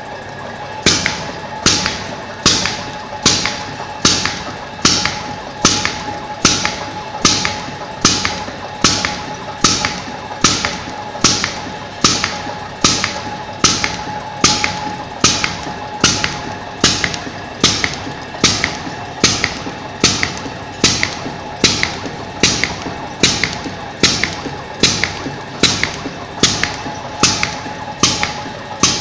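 RM-25 CNC brazing ring making machine running, its pneumatic cutter giving a sharp clack at a steady, even rate as each coiled wire ring is cut off, starting about a second in. Under the clacks runs a steady machine hum with a thin constant tone.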